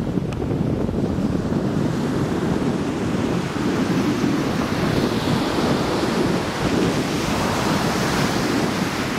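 Surf breaking and washing up a sandy beach, with wind buffeting the microphone in a steady low rumble. The hiss of the surf swells about halfway through.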